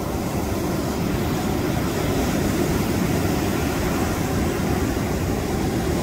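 Sea surf: a big wave breaking and washing in over a flat rock shelf at the waterline, a steady loud rushing noise with a deep rumble underneath.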